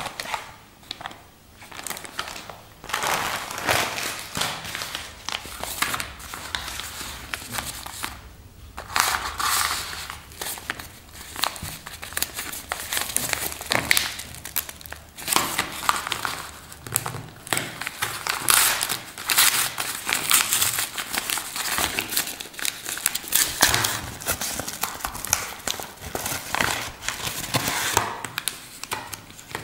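A white mailing envelope being opened by hand, crinkling and rustling in irregular bursts. Near the end the plastic zip-lock strap packets rustle as they are pulled out.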